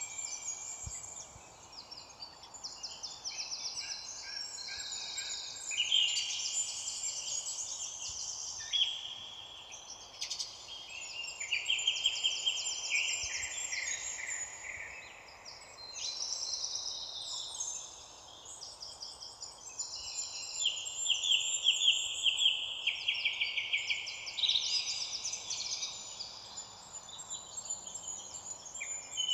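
Several songbirds singing at once, a continuous overlapping chorus of quick trills and chirps over a faint steady background hiss.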